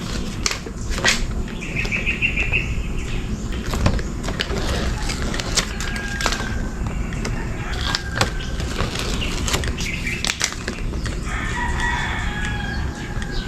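Rustling and crackling from tape and its plastic backing being peeled and handled, with many short clicks. A rooster crows and clucks in the background.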